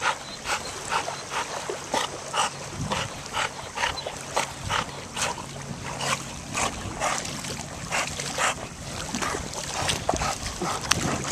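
Chesapeake Bay retriever swimming with a tennis ball in her mouth, puffing her breath out in short regular huffs, about two a second.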